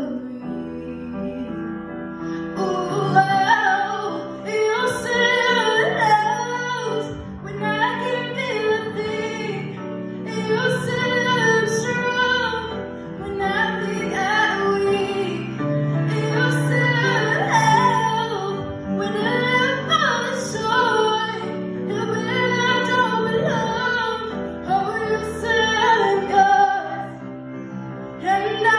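A solo female voice singing into a microphone, accompanied by a grand piano. The piano plays alone for about two seconds before the voice comes in, then she sings in long held phrases.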